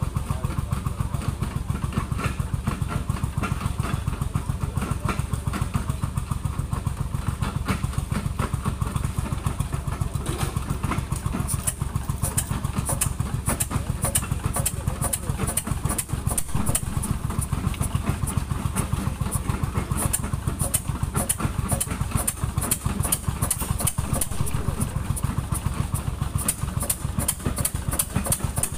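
A machine's engine running steadily with a fast, even pulse. About twelve seconds in, a rapid high-pitched ticking joins it and goes on.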